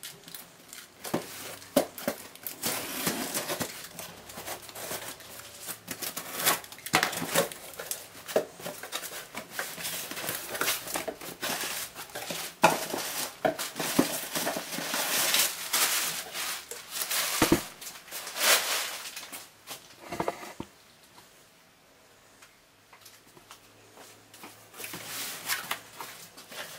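A cardboard shipping box being unpacked by hand: a utility knife slitting the packing tape, cardboard flaps pulled open, and wrapping paper crinkling as packing is lifted out. Irregular rustling and scraping with scattered sharp knocks, dying down for a few seconds near the end.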